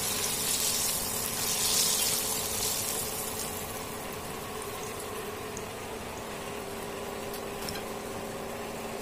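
Hot oil sizzling around a flour-battered snapper fillet as it goes into the frying pan. The sizzle is loudest in the first couple of seconds, then settles into a steadier, slightly quieter sizzle.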